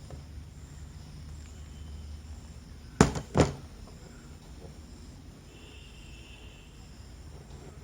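Two sharp knocks about three seconds in, a third of a second apart, from pliers and small connector parts being handled on a hard work surface. A low hum runs underneath.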